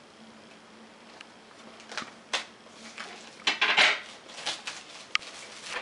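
A knife scraping and clicking against a cardboard iPad mini box as its plastic wrap is cut open, with a louder rustling stretch about three and a half seconds in and a single sharp click near the end.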